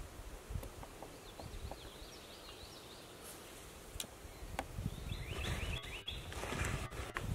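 Faint songbird chirps, a run of quick high notes about a second in and another about five seconds in, over a low rumble and a few light bumps.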